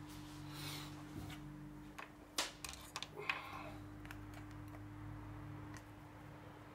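A few light clicks and taps of small objects being handled on a workbench, the sharpest about two and a half and three and a half seconds in, over a steady low hum.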